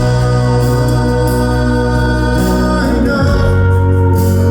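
Live rock band playing between sung lines: sustained chords over a held bass note, which moves to a new note about three seconds in.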